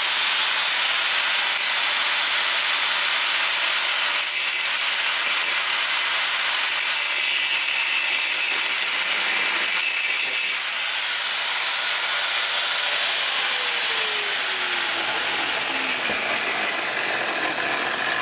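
Disc grinder grinding down a lumpy weld bead on a steel muffler flange: a loud, steady grinding hiss with the high whine of the spinning disc, easing slightly about ten seconds in.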